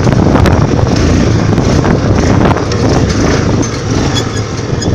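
400 cc ATV running while being ridden, its engine and drivetrain rumbling under heavy wind buffeting on the phone's microphone.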